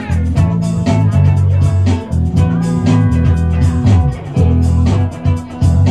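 Live band music: an electric guitar and a keyboard playing over a steady beat and a deep bass line.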